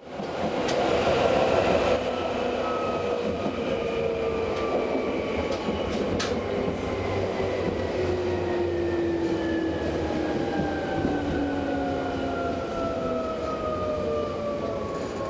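Electric commuter train heard from inside the carriage: a steady wheel-and-track rumble under a motor whine of several tones that falls slowly in pitch as the train slows, with a few light clicks.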